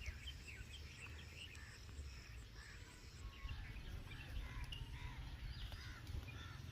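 Faint birds chirping over a low, steady rumble of outdoor background noise.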